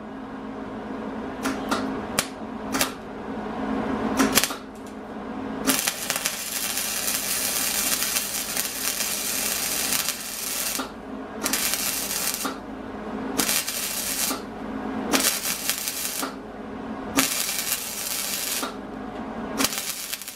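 Wire-feed welder welding an angle-iron bracket onto a steel go-kart frame: a few short crackling strikes in the first few seconds, then a steady arc crackle in runs of one to five seconds with brief pauses between them.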